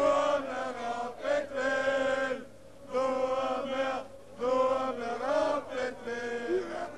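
Group of football supporters chanting in unison, singing held phrases with short breaks about two and a half and four seconds in.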